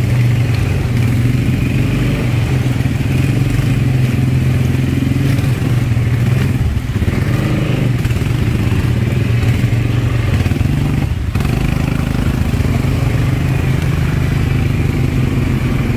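ATV (quad bike) engine running steadily under way, a continuous low engine note that holds its pitch with only small changes.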